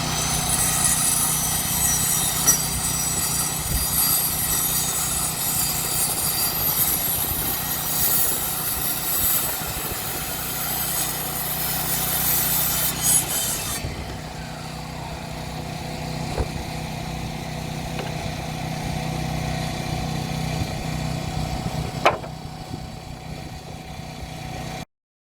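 An engine running steadily, with a high hiss over it that cuts off about halfway through and a single sharp knock near the end.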